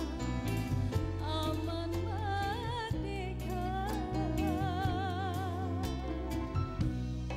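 Female vocalist singing live into a microphone over band accompaniment, holding long notes with a wide vibrato.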